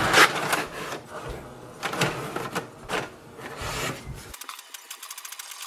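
HP DeskJet inkjet printer printing a print-head alignment page: paper feeding and the print carriage working, heard as a run of uneven clicks and whirs. Rapid, even ticking follows about four seconds in.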